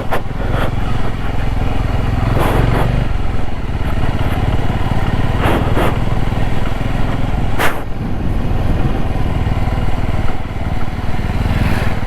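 Motorcycle engine running steadily under way on a rough track, with a few short rattles or bumps, the sharpest about seven and a half seconds in.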